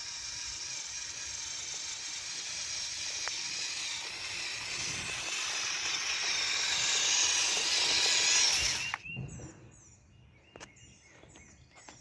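A LEGO Technic RC truck's BuWizz Buggy Motors and plastic gear train whining under drive, growing louder, then cutting off suddenly about nine seconds in. A few light clicks follow.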